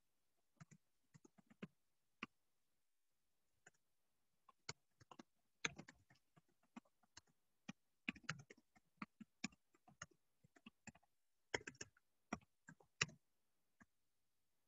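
Faint, irregular clicks and taps, sparse at first, then in quick flurries in the middle and again near the end.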